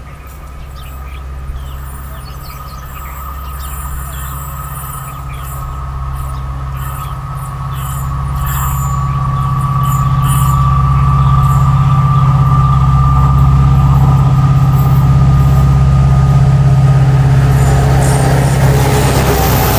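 EMD WDP4B diesel-electric locomotive's 16-cylinder two-stroke engine working under power with a deep, steady drone and a thin whine, growing louder over the first half as it approaches. Near the end the rush of the train itself comes in.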